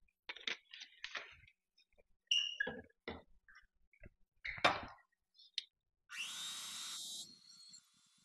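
A series of knocks and clicks as the vanilla bottle and the mixer are handled around a glass mixing bowl. About six seconds in, an electric hand mixer switches on, its motor whine rising in pitch as it spins up, then running on more quietly.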